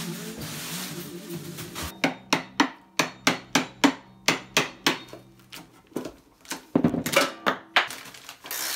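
Hammer blows on a wooden shipping crate: a quick run of about a dozen sharp strikes, roughly three a second, then a pause and a few more strikes near the end.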